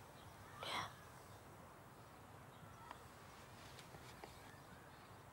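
Near silence: quiet room tone, broken once under a second in by a short, sharp sound and later by a few faint ticks.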